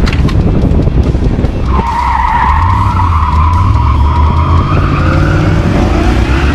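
Engine of a 1966 Ford F-100 on a 2002 F-150 Lightning powertrain, a supercharged 5.4-litre V8, running under load as the truck is driven hard through cones. Its tyres start squealing steadily about two seconds in and keep on through the turn.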